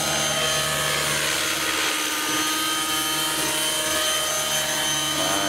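Align T-Rex 600 nitro RC helicopter flying low, its two-stroke glow engine and rotor blades making a steady high-pitched whine that holds one pitch throughout.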